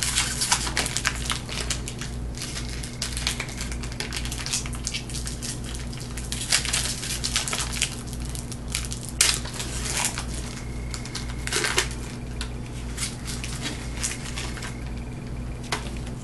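Foil trading-card pack wrapper crinkling and tearing as it is opened by hand, with the cards inside being handled: a run of irregular crackles and rustles. A steady low hum lies underneath.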